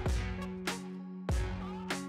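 Background music with a steady beat of drum hits over held tones.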